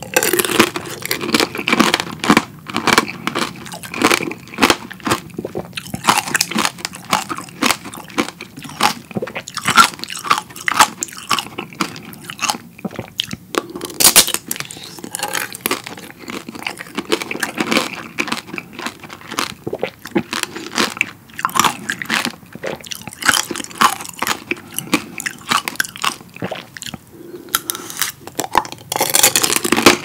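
Close-miked biting and chewing of tanghulu, strawberries coated in a hardened sugar-syrup shell. The glassy candy coating cracks and crunches between the teeth in many sharp crunches, one after another.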